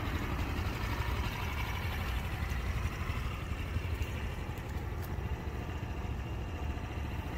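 X-Pro Tahiti 150 scooter's 150 cc single-cylinder engine idling steadily.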